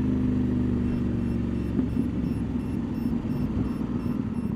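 CF Moto 800MT Explore's 799 cc parallel-twin engine running through a link pipe fitted in place of the catalytic converter, definitely loud from the saddle. It holds a steady note, then about two seconds in the sound turns rougher and uneven as the bike slows.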